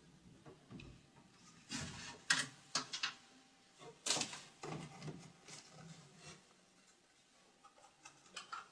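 Clothes rustling and objects knocking on a wooden shelf as someone rummages through it by hand, with a few sharp clicks and knocks about two to four seconds in and lighter handling near the end.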